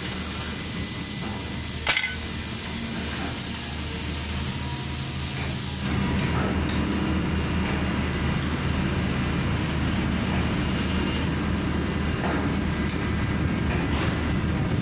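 Stick-welding arc crackling and hissing for about six seconds, then cutting off suddenly, over the steady hum of an engine-driven welding machine running. A sharp click about two seconds in.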